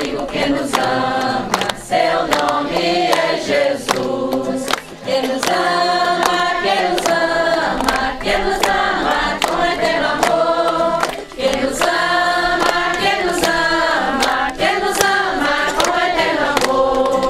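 A congregation singing a hymn together in unison, with a regular beat of sharp strokes underneath.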